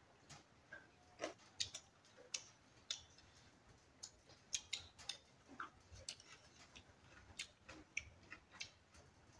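Faint eating sounds: soft, irregular clicks of chewing mouths and of spoons touching a plate, a few each second.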